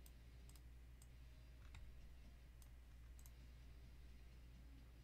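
Faint computer mouse clicks, about eight scattered single clicks, over a low steady hum.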